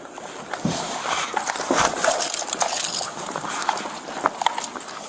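Scuffle noise on a police body camera: clothing rubbing and brushing directly over the microphone, with scattered knocks and clicks, as officers grapple a man to pull his hands behind his back.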